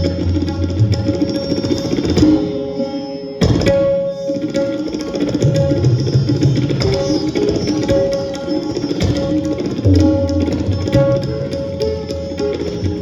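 Tabla playing fast, dense strokes with recurring deep bass strokes from the bayan, over plucked Indian classical strings in a Hindustani classical performance. The music briefly dips about three and a half seconds in and resumes at once.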